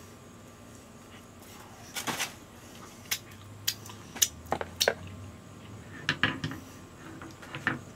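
Metal fork and wire grill rack clinking and rattling against each other and the wooden cutting board as the pork loin is lifted off: a string of sharp, irregular clinks.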